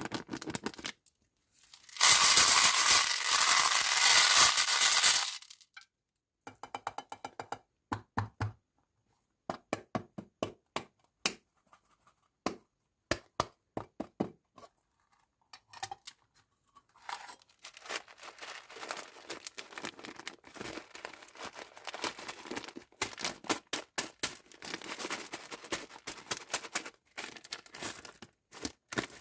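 Plastic packaging being torn open by hand: a loud ripping that lasts about three seconds, then scattered clicks and crackles of handling, and a stretch of steady crinkling near the end.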